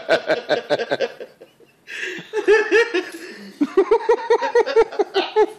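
Laughter: a run of quick, rhythmic ha-ha pulses that breaks off briefly about a second and a half in, then starts again and carries on.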